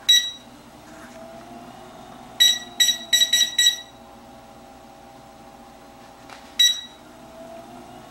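Control-panel buttons of a Bladez Vibro Balance vibration plate beeping as they are pressed: one beep, then a quick run of five, then one more. Under the beeps is the steady hum of its motor running at low speed.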